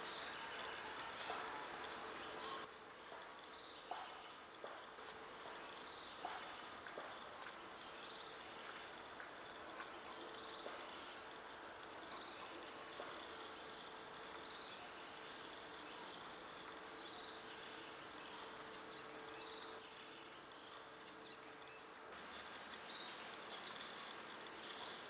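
Faint tropical forest ambience: a dense scatter of short, high insect chirps over an even hiss, with a steady low hum that fades in and out.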